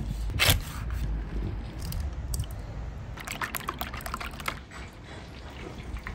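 Food-preparation sounds in quick succession: a knife cutting through a raw chicken on a wooden board, then a wire whisk beating eggs in a plastic bowl, giving a run of rapid wet clicks about halfway through.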